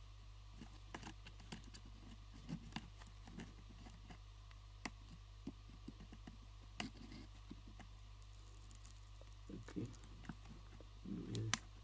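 Faint, scattered clicks and ticks of a blade and gloved fingers working the adhesive-held back cover of a phone loose, with a few soft handling rustles near the end.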